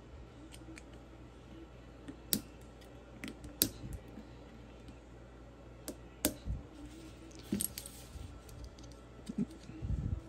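Small sharp metal clicks and ticks, a handful at irregular intervals, from a screwdriver tip prying at the spring collar that holds the extractors on a CZ 457 rimfire bolt head.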